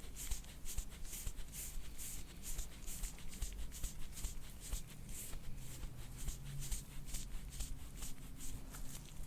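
Repeated rubbing strokes of soft-tissue massage working over the upper shoulder, a soft swishing about two to three times a second.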